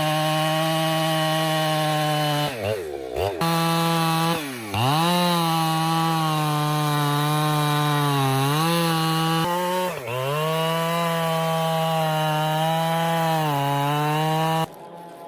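Two-stroke chainsaw running at high revs as it cuts wood; its engine speed drops sharply and climbs back a few times, about three seconds in, again a second later, and near ten seconds. The sound cuts off suddenly near the end.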